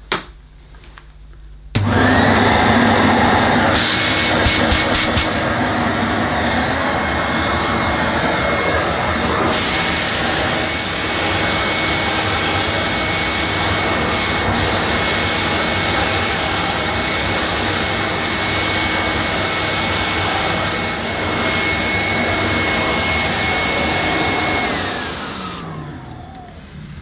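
Vintage Vorwerk VK121 vacuum cleaner switched on about two seconds in and running with a steady high whine over a loud rush. Near the end it is switched off and the motor winds down, its whine falling in pitch as it fades. It sounds very nice.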